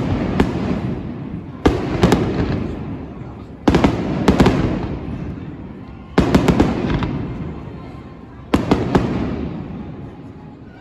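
Aerial fireworks shells bursting: five loud bangs about two seconds apart, each followed by a few quick cracks and a rumbling echo that fades away.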